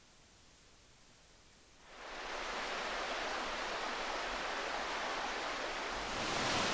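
Near silence for the first two seconds, then the steady rush of a stream's flowing water fades in and runs on at an even level.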